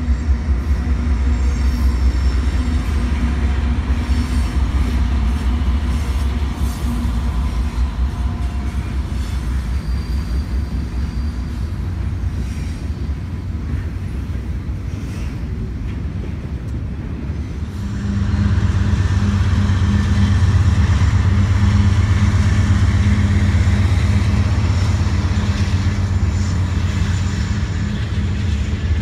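Canadian Pacific double-stack container train rolling past, with the low rumble of diesel locomotive engines and steel wheels on rail. About two-thirds of the way through it grows louder with a steady engine drone as a mid-train GE ES44AC distributed-power locomotive comes by.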